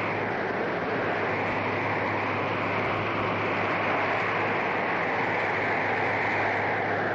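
Steady rushing wind, a windstorm sound effect, with a low hum beneath it.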